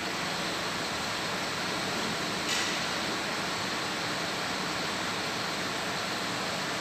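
Steady background hiss and hum, with a short soft hiss about two and a half seconds in.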